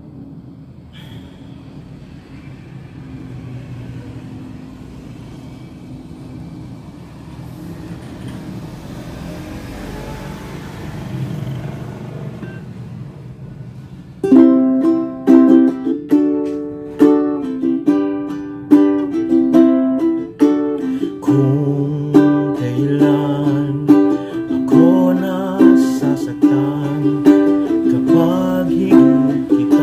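Low background noise, then about fourteen seconds in an all-Hawaiian-koa tenor ukulele starts being strummed in ringing chords, roughly one strum a second.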